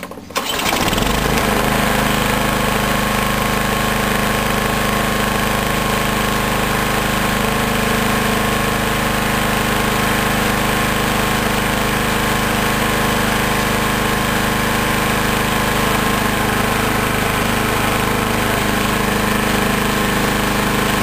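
Lawn mower engine starting within the first second and running steadily, keeping running instead of stalling after two seconds now that the carburetor has been cleaned.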